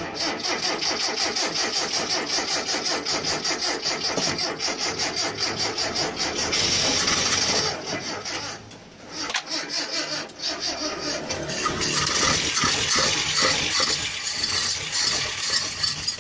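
Mitsubishi Colt T120 engine being cranked by its starter in two long, rhythmic attempts, with a short break about halfway through. The engine does not catch; the cranking cuts off suddenly near the end.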